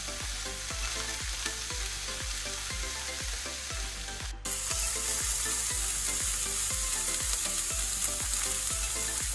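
Chopped onion and grated carrot sizzling in hot oil in a frying pan as the carrot is tipped in for a sofrito: a steady frying hiss that gets a little louder about four and a half seconds in.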